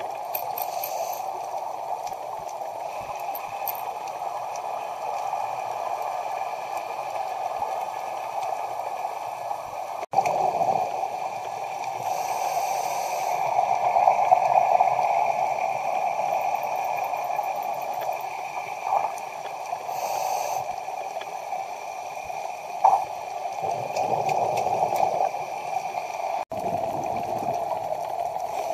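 Underwater sound of a scuba dive: a steady watery rushing with bubbling gurgles of divers' exhaled air from their regulators, and a few short high hisses. The sound drops out for an instant twice, about ten seconds in and near the end.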